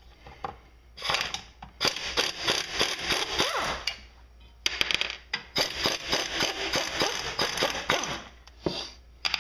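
Ratchet wrench clicking rapidly in two long runs of about three seconds each, backing out the cylinder head bolts on a Briggs & Stratton single-cylinder mower engine.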